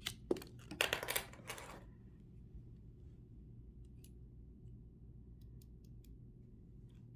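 Hand-handling noise from small camera parts. A cluster of clicks and a short scraping rustle come in the first two seconds, then a few faint light ticks as a small hex screwdriver is fitted into a screw on a mount piece.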